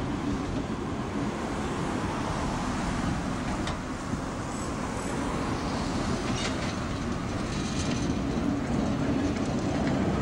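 Vintage electric tram rolling slowly past on street track, its wheels running on the rails, with cars passing close by in the traffic.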